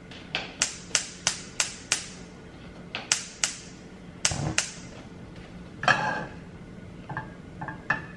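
Kitchen clatter: a quick run of sharp clicks and clinks from utensils and pans handled at the stove, about three a second at first, then scattered, with a heavier clatter about six seconds in.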